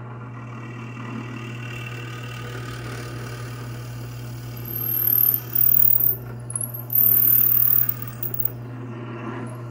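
Benchtop drill press running with a steady motor hum as the bit is fed into a cherry hardwood walking stick to bore a lanyard hole. The cutting comes in loud, high squealing bursts about five and seven seconds in.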